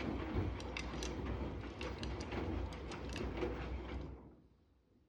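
Electrolux EW6F341PST front-loading washing machine in its main wash: the drum turns with wet laundry tumbling inside, a low rumble with irregular sharp clicks of items knocking in the drum. About four seconds in the drum slows and stops, the pause between wash rotations.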